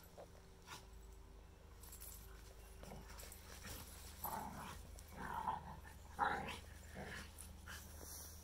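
A Shikoku and a Karelian Bear Dog play-fighting, with a handful of short dog play vocalizations from about four seconds in. The loudest comes a little after six seconds.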